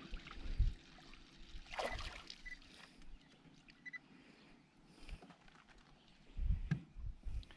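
Water lapping against a small fishing boat, with handling noises of a crappie being reeled in and lifted aboard: faint clicks and a few low knocks, the loudest about six and a half seconds in.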